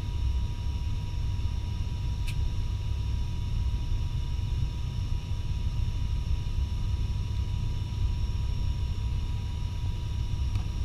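Steady in-flight cabin noise of an ATR 72-600's Pratt & Whitney PW127M turboprop engines and six-blade propellers: a low rumble with a thin, even whine, heard from a seat beside the propeller.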